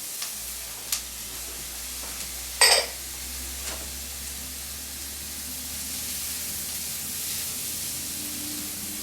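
Vegetables sizzling in sesame oil in a hot wok as they are stir-fried, a steady hiss with a few light clicks and one short, loud clatter about two and a half seconds in.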